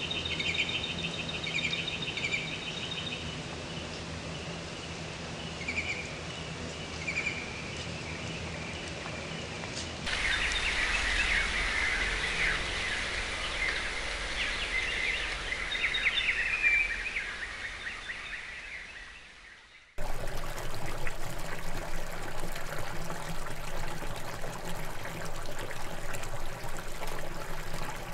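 Songbirds chirping over a steady outdoor background. About ten seconds in, the birdsong grows louder and busier, then fades out. It cuts abruptly to an even hiss of trickling water.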